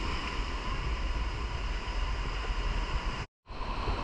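Boat motor running steadily with a faint whine over a low rumble, wind buffeting the microphone. The sound cuts out completely for a split second near the end.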